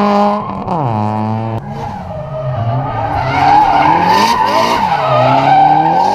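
Drift car's engine revving hard, its pitch dropping sharply about a second in, then rising and falling with the throttle while the tyres squeal as the car slides sideways.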